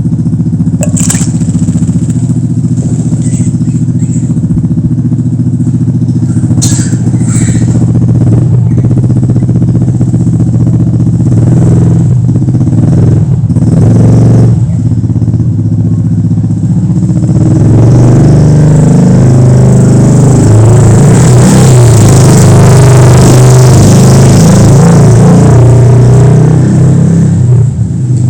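A motor engine running steadily with a low hum, getting louder and rougher about two-thirds of the way through.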